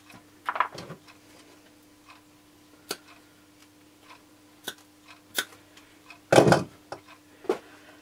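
Scattered sharp clicks and snips of a cutting tool and plastic wiring sheath being handled as the sheath is cut to length, with one louder knock near the end.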